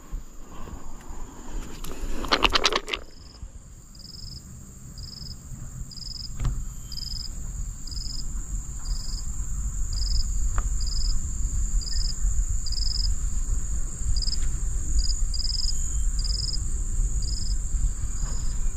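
Insects calling: a steady high drone with a short chirp repeating about once a second. A brief loud rasping sound comes about two seconds in, and a low rumble builds from about six seconds in.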